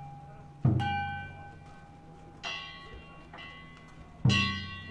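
A danjiri float's drum and small hand gong (kane) struck in a slow beat. Two strokes, about a second in and near the end, sound drum and gong together as a deep thud under a bright metallic ring. Lighter gong strokes fall between them, each ringing away.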